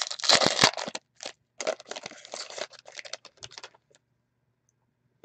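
Foil wrapper of a trading-card pack being torn open and crinkled by hand, in two spells of crackling, the first the loudest, ending about four seconds in.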